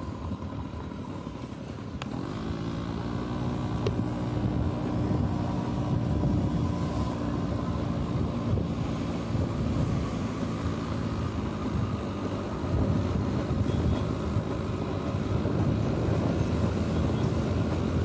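Motorcycle engine running while being ridden, the revs rising about two seconds in as it picks up speed, then holding steady.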